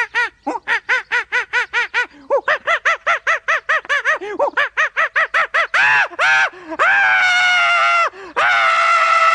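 A cartoonish voice hooting in quick, even yelps, about five a second, then breaking into long held screams that slowly drop in pitch, like a cry of someone falling away into the chasm.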